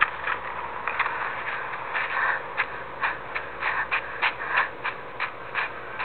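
Quick footsteps in snow, about three steps a second, as of someone running.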